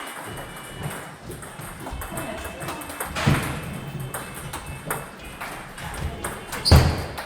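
Table tennis ball clicking off paddles and bouncing on the table during a rally, a run of sharp pings and taps; the loudest hits come about three seconds in and near the end.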